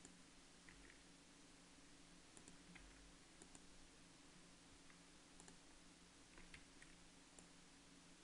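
Near silence with faint, scattered clicks of a computer mouse and keyboard over a low steady hum.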